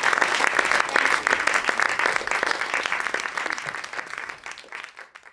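Theatre audience applauding, fading away over the last couple of seconds.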